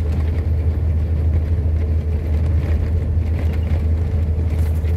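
A car driving at steady speed on an asphalt road: a continuous low engine and road rumble.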